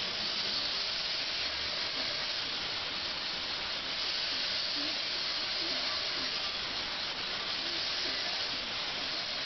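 Turning tool cutting a spinning wooden blank on a wood lathe: a steady, even hiss of the cut.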